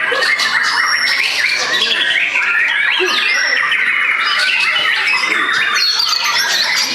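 White-rumped shama (murai batu) singing loud, varied whistled phrases with quick rising and falling notes, over a dense chorus of other competing songbirds singing at once.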